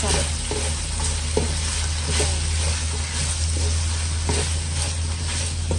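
Shredded cabbage and bell pepper sizzling in oil in a nonstick wok while a wooden spatula stirs and turns them, with scattered light scrapes of the spatula against the pan. A steady low hum runs underneath.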